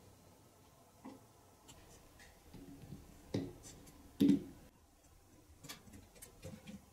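Light wooden clicks and knocks as carved wooden parts of a model engine are handled and a wooden fan is fitted onto its end. There are a handful of taps, the two loudest about three and four seconds in.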